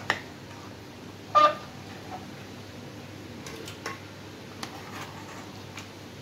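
Steel ladle clinking against the rim of a cooking pot and a pressure cooker while curry is scooped and transferred: a sharp click at the start, one louder ringing clink about a second and a half in, then a few light clicks.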